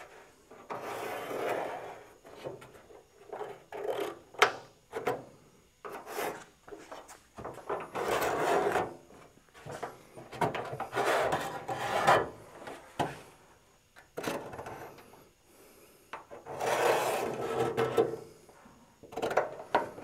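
Marker rubbed across a sheet-steel patch panel laid on a car trunk lid, marking a cut line, in several long rubbing strokes of a second or two each, with light clicks and knocks of the metal between them.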